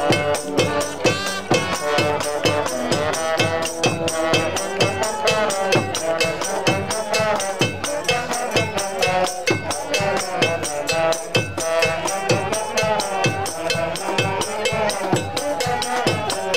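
Brass street band playing an upbeat tune: sousaphone bass line, trumpets, trombone and saxophones over drums and cymbals keeping a steady fast beat.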